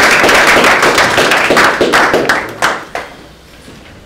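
Small room audience applauding, a dense patter of many hands clapping that thins to a few last claps and dies away about three seconds in.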